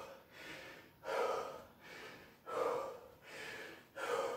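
A man out of breath from hard exercise, breathing heavily in and out through a body-worn microphone: a full breath about every second and a half.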